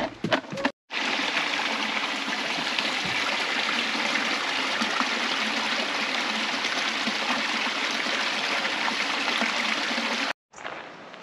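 Small rocky creek running over mossy stones, a steady, even rush of water that starts and stops abruptly. In the first second, footsteps on wooden footbridge planks.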